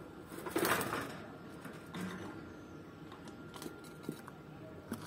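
A caged bird moving about in a wire aviary: a short rustling burst about half a second in, then scattered light clicks and taps.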